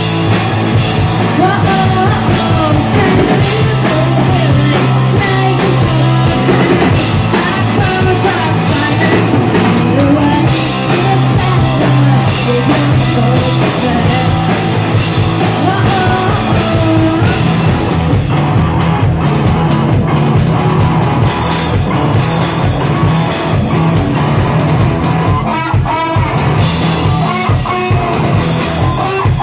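Live rock band playing loud: electric guitars through amplifiers and a drum kit, pounding on continuously.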